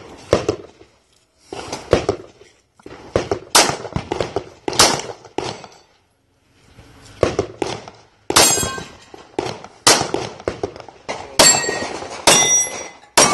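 Pistol shots fired in quick strings at steel targets, with the steel plates ringing with a metallic clang when they are hit. There is a brief silent pause about six seconds in, then the shooting resumes.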